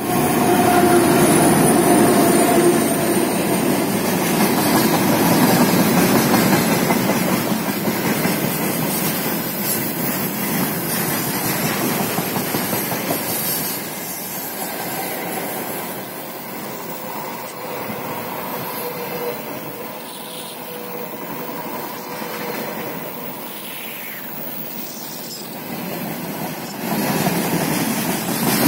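A diesel-hauled freight train passing close by. The locomotive's engine is loudest in the first few seconds, then tank cars and gondolas roll past with steady wheel-on-rail noise. The noise eases about halfway and rises again near the end.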